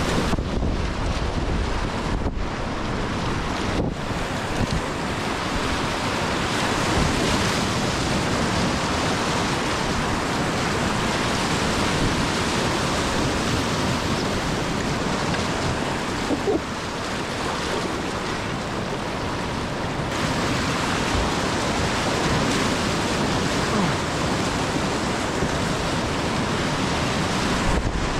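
Whitewater rapids rushing and churning steadily around a kayak running through them.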